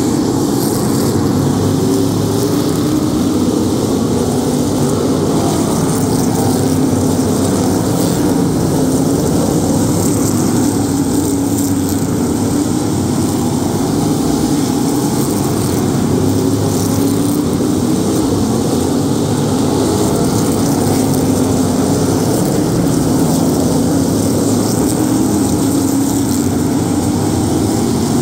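A pack of modified stock cars racing on a paved oval, their engines running together in a loud, steady drone.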